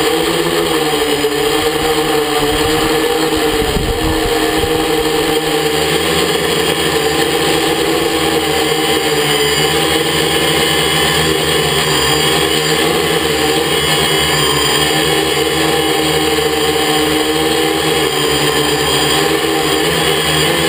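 A quadcopter's electric motors and propellers hum steadily overhead, a stack of steady whining tones. The pitch wavers in the first few seconds as the craft manoeuvres, with a brief low rumble, then holds steady.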